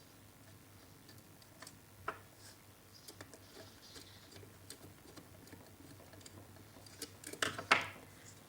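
Faint scattered clicks and taps of a wire being fitted and screwed into a terminal of a plastic power-plug board, with a louder cluster of taps near the end.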